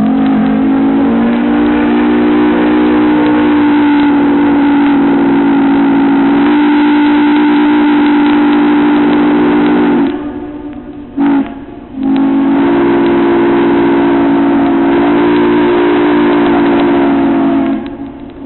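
Steam locomotive's whistle blowing a chord of several notes at once: one long blast of about ten seconds, a short toot, then another long blast of about six seconds.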